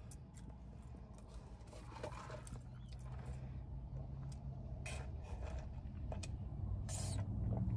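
Faint mouth sounds of eating: chewing, lip smacks and finger-licking clicks, then soft sipping of a drink through a straw, over a low steady hum.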